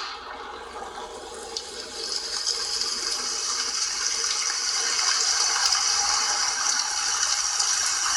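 Phone loudspeaker of a Lenovo K6 Note playing Dolby Atmos test audio: a steady, water-like rushing noise, growing a little louder about two seconds in.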